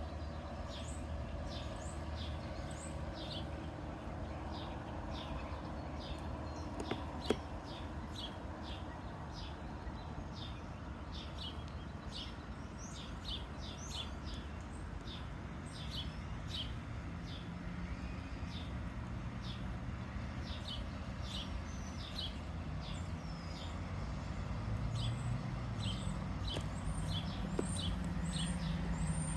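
Small birds chirping over and over, short high chirps about once or twice a second, over a steady background hiss. A low rumble grows louder near the end.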